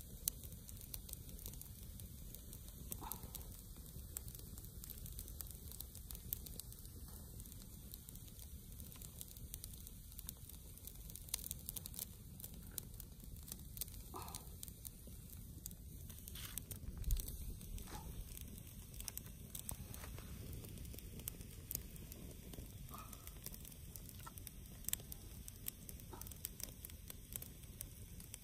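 Faint rustling and scattered small crackles as hands work in dry grass and twigs, with one louder knock about 17 seconds in.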